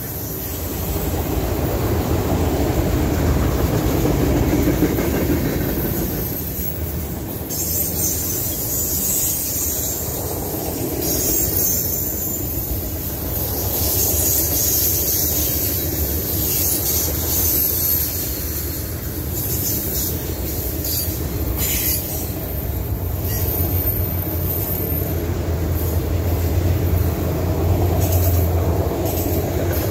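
Freight train cars rolling past (autoracks, covered hoppers and tank cars): a steady rumble of steel wheels on rail, with high wheel squeal coming and going.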